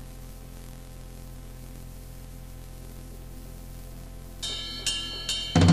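Silence between songs on a punk band's demo tape, filled by a steady low electrical hum. Near the end a few sharp cymbal or hi-hat taps count in, and the drums and distorted guitars of the next song crash in.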